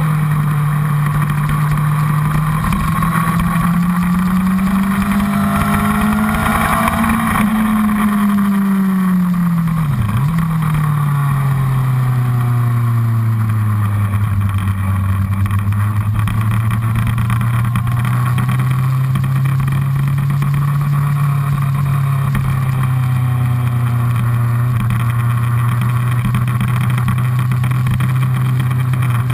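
Honda CBR1000RR's inline-four engine running hard on track, with wind rushing over the tank-mounted microphone. The engine note climbs for several seconds, dips sharply once about ten seconds in, then holds lower and nearly steady.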